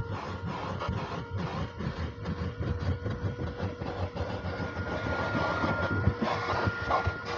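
Vacuum cleaner running with a steady whine as its crevice nozzle is pushed back and forth over car floor carpet, sucking and scraping irregularly against the pile.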